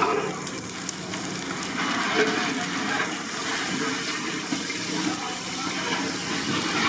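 Sliced onions and green chillies sizzling in hot oil in a large aluminium pot as they are stirred with a long metal ladle: a steady hiss.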